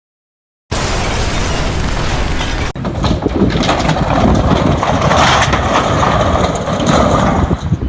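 Loud, steady mechanical noise like heavy machinery running, starting after a brief silence. It changes abruptly to a different, similar din about three seconds in.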